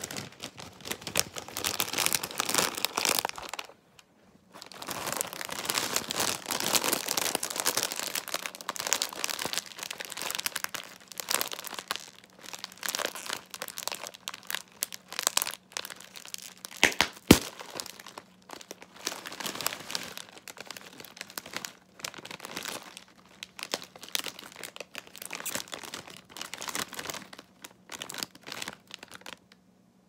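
Plastic potato chip bag crinkling and crumpling as it is squeezed and worked in the hands, in irregular bursts with a brief pause about 4 seconds in. One sharp pop stands out about halfway through.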